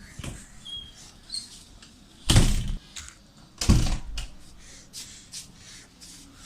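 Two loud thuds about a second and a half apart, with faint small knocks between.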